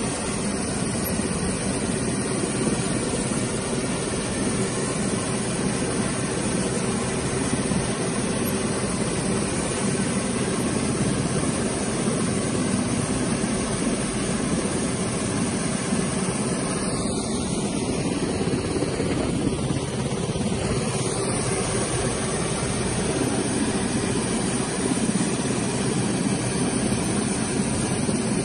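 Westland Sea King helicopter running on the ground with its rotors turning: a steady, loud rush of its twin turbine engines and rotors, with a high turbine whine above it.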